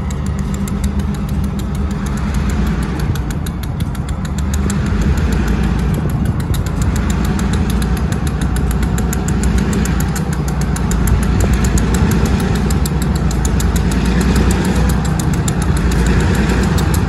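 Diesel freight locomotives running at low throttle as they approach slowly, a steady engine rumble that grows gradually louder.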